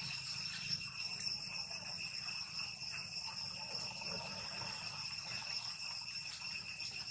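Steady high-pitched insect drone, one unbroken tone with fainter higher overtones, over light outdoor background noise.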